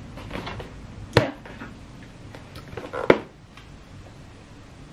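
A cardboard gift box being handled and turned, rubbing in the hands, with two sharp knocks, about a second in and about three seconds in.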